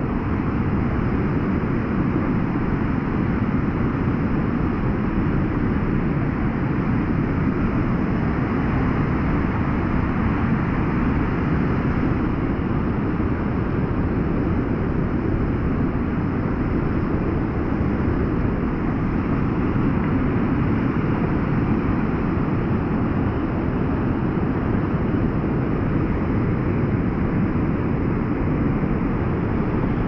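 A fast, swollen river rushing over rocks through whitewater rapids: a steady, unbroken rushing of water.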